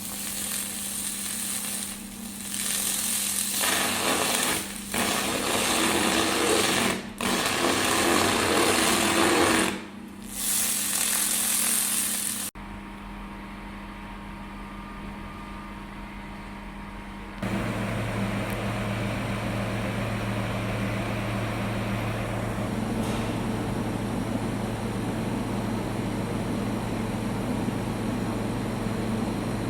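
Handheld fiber laser cleaner ablating rust from metal: a loud, dense buzzing crackle in several runs with brief breaks, stopping abruptly about twelve seconds in. From about seventeen seconds a steady machine hum runs on.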